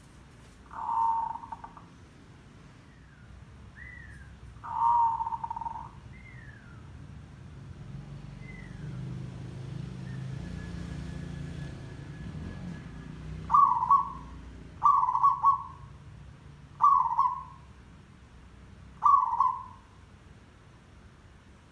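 Zebra dove (merbok) cooing: two longer rolling coos in the first six seconds, then four shorter coos about every one and a half to two seconds in the second half. Faint high falling whistles come between them, and a low hum swells in the middle.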